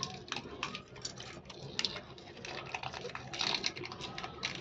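Brown packing tape crackling in short, irregular clicks as it is pulled off the roll and wound around a battery pack of cylindrical cells, with a denser run of crackles about three and a half seconds in.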